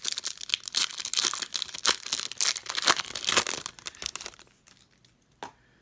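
Wrapper of a sealed baseball card pack being torn open and crinkled by hand, a dense crackly rustle lasting about four seconds. Then a single short click.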